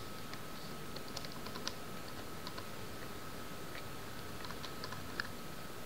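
Computer keyboard typing: light, scattered key clicks over a steady background hiss and a faint high steady hum.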